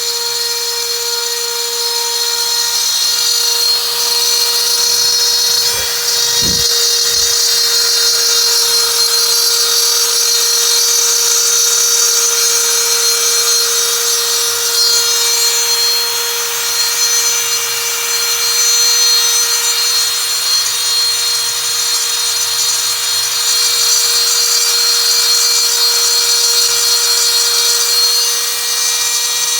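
CNC router spindle cutting aluminium composite panel: a steady whine with a continuous high cutting hiss. A few soft low thumps come about six to seven seconds in.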